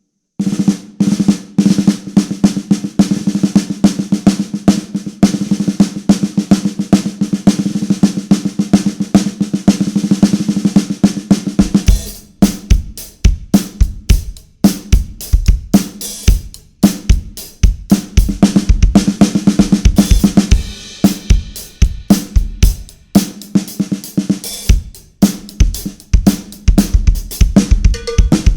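Snare drum fitted with a Big Fat Snare Drum "Steve's Donut" pad, played alone in fast rolls and fills for about twelve seconds, with a strong, fat low ring. Then a full drum-kit groove with bass drum takes over.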